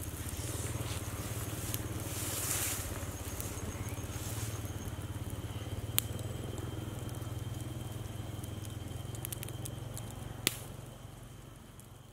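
Campfire burning and crackling, with two sharp pops, one about halfway through and one near the end, over a steady low hum.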